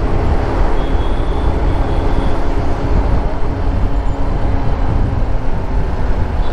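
Motorcycle riding along a road, with wind rushing over the microphone and the engine's steady hum underneath.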